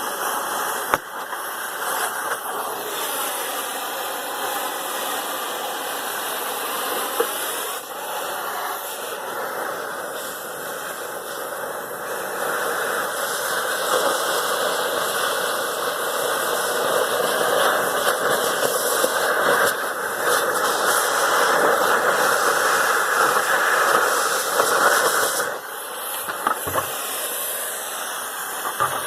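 Cutting torch hissing steadily as it cuts scrap metal. It grows louder past the middle and drops off suddenly near the end.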